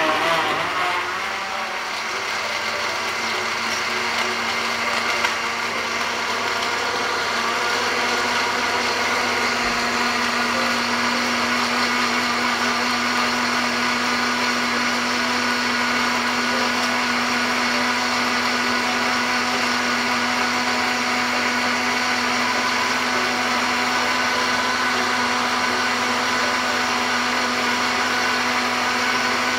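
Electric blender running continuously, grinding ice cubes and apple chunks with water into juice. The motor noise settles over the first several seconds and then holds steady as the mix turns smooth.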